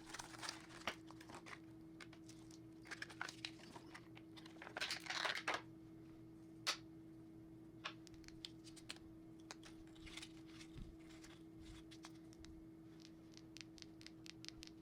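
A small flashlight being unboxed: quiet rustling, crinkling and tearing of packaging with scattered small clicks and taps. A louder rustle comes about five seconds in and a sharp click a moment later, over a faint steady hum.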